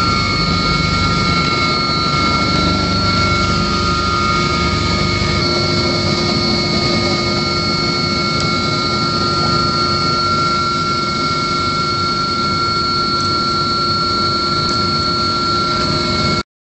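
Helicopter cabin noise: the turbine engine's steady whine, several fixed high tones over a constant rush of engine and rotor noise. It cuts off suddenly near the end.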